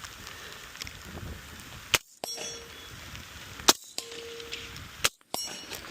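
Three gunshots about a second and a half apart, the first two each followed by the ringing ping of a hit steel target.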